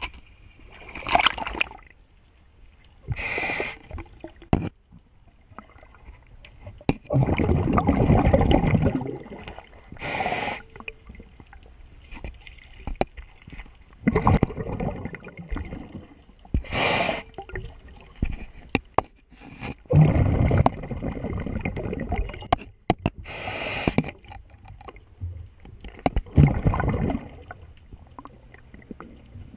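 Scuba diver breathing through a regulator underwater: a short hiss on each inhale, followed a few seconds later by a louder, longer bubbling rush of exhaled air, about one breath every six to seven seconds.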